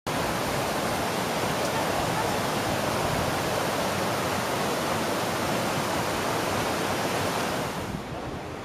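Steady, even rushing noise that drops away a little before the end, where a quieter, gustier outdoor sound takes over.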